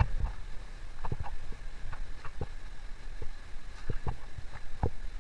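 Irregular footsteps and scuffs on a trail, a short knock every half second to a second, over a steady low rumble.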